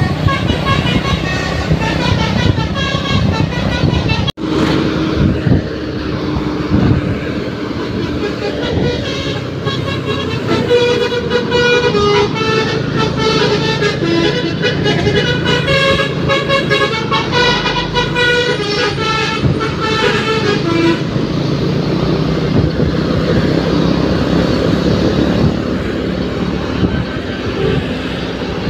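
An ALS 103 bus's telolet horn, a multi-tone musical bus horn, playing a tune in short stepped notes over a steady low vehicle hum. The sound cuts out for an instant about four seconds in, and the notes stop about two-thirds of the way through, leaving the hum.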